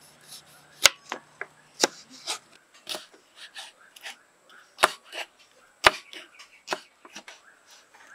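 Kitchen knife chopping peeled snake fruit on a wooden cutting board: an irregular run of sharp knocks of the blade striking the board, with lighter cuts in between.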